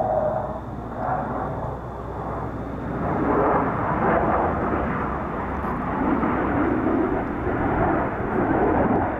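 Jet engine noise from F-16 fighter jets flying overhead in formation, a steady roar that grows louder about three seconds in and wavers as they pass.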